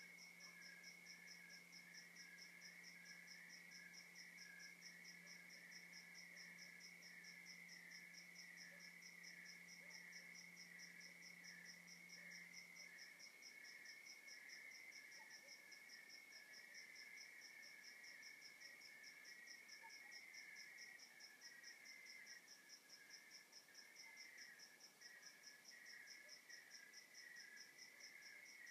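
Faint nighttime chorus of crickets and other night insects chirping in several overlapping, evenly pulsing trills. A faint low hum fades out about halfway through.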